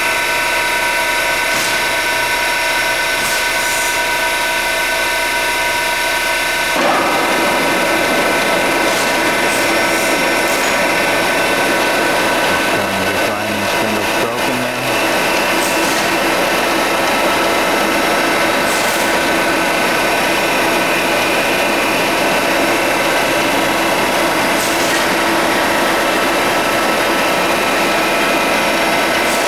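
Internal grinding spindle on a 52-inch King vertical boring mill running under power: a steady machine whine with several held tones. About seven seconds in it turns louder and rougher.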